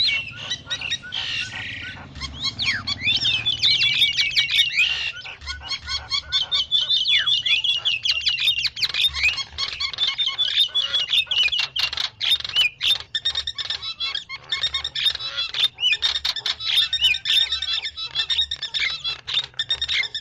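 Starlings (jalak) calling: a dense, unbroken chatter of quick chirps, whistled glides and clicks, the kind of lure recording played to draw in wild starlings for trapping.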